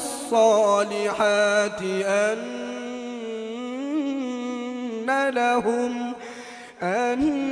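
A man's voice reciting the Quran in a melodic tajwid style, drawing out the word "as-salihat" in one long held note that slides and wavers in pitch. The note grows quieter before a short dip near the end, then the voice returns louder.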